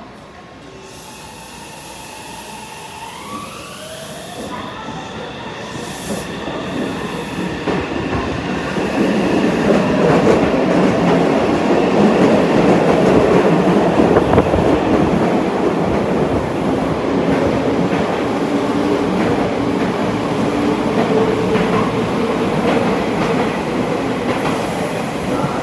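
Meitetsu 2000 series μSKY electric train running, with its motor whine rising in pitch over the first few seconds and then holding steady. The running noise grows louder and is loudest in the middle, with rail clatter.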